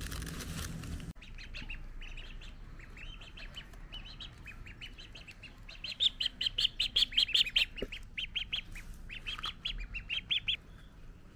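Ducklings peeping: a rapid run of short, high calls, busiest and loudest in the middle, thinning out and stopping near the end.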